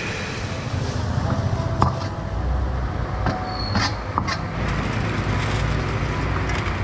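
Steel ladle clinking and scraping against a carbon-steel wok and a steel plate as stir-fried hakka noodles are served, a few sharp clinks about two seconds in and again around four seconds. Under it runs the steady low roar of the stall's gas wok burner.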